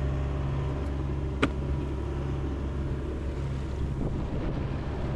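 Sailboat's engine running steadily under motor in calm, windless conditions, a constant low hum, with a single short click about a second and a half in.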